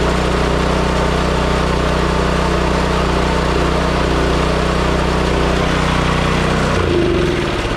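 Toro 721 snowblower's four-stroke engine running steadily, low on oil, after being brought back from a no-run condition; it is shut off about seven seconds in and winds down.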